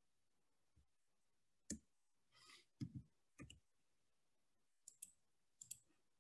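Faint computer keystrokes: a few separate key clicks with pauses between them, and sharper paired clicks near the end.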